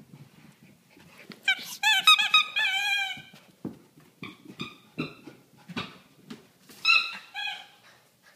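Dachshund squeezing a squeaky ball in its jaws: a run of high, wavering squeaks for about two seconds, then a few soft thumps, then two more squeaks near the end.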